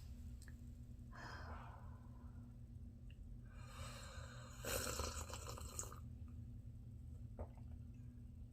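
A person slurping hot coffee: a soft rush of breath about a second in, then a longer, louder, crackly slurp about four to six seconds in.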